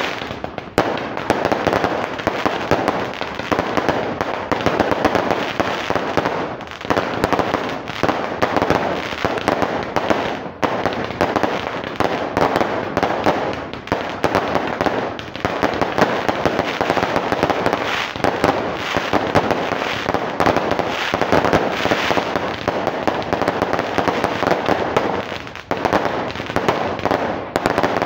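Aerial fireworks going off in a dense, continuous stream of overlapping bangs and crackles, with no pause between them.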